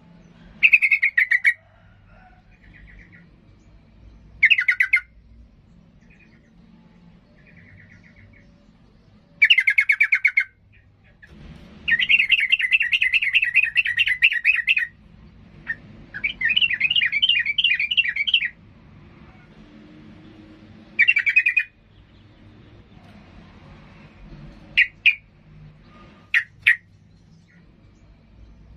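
Caged yellow-vented bulbul singing in an agitated state: short bursts of rapid, bubbling notes, with two longer chattering runs near the middle and a few single sharp notes near the end.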